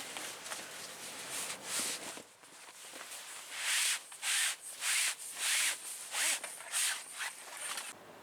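Repeated rubbing strokes, soft at first, then louder and at about two a second from about three and a half seconds in, stopping just before the end.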